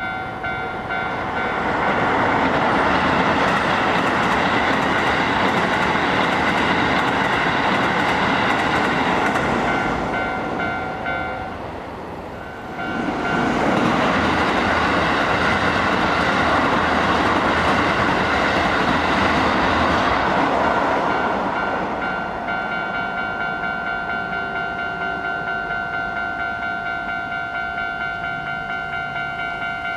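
Japanese railway level-crossing alarm ringing in a steady repeating electronic ding. Two trains pass the crossing one after the other, the first for about ten seconds and the second, after a brief lull, for about eight more. The alarm keeps ringing alone after the second train clears.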